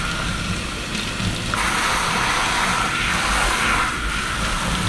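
Water running steadily from a tap or shower during hair washing. It gets louder about a second and a half in.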